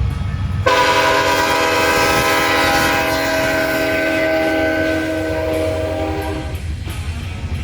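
Train horn sounding one long blast of several notes at once, starting about a second in and fading out near the end, over a low rumble.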